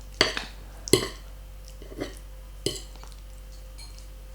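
Fork or spoon clinking against a plate while eating pasta: about five short, sharp clicks, the loudest about a second in.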